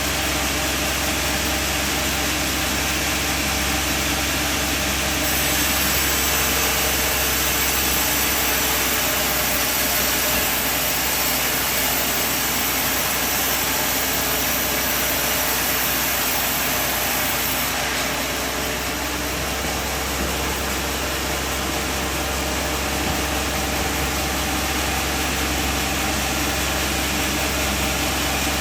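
Band sawmill running steadily while sawing timber. It makes a constant machine hum with a hiss that brightens from about five seconds in and eases back at about eighteen seconds.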